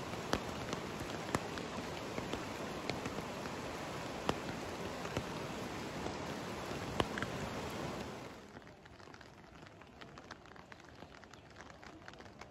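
Steady rushing of a flooded river, with sharp raindrop ticks on top. About eight seconds in it gives way to a much quieter patter of light rain with scattered drop ticks.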